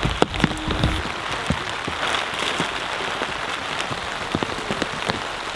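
Steady rain pattering onto black plastic ground sheeting, an even hiss dotted with many small ticks.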